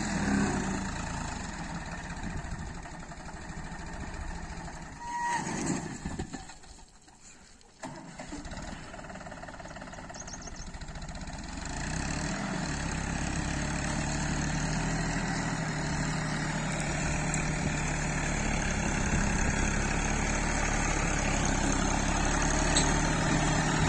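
John Deere tractor's diesel engine running as the tractor drives across a field, dropping almost away for about a second some seven seconds in, then growing louder as it comes near.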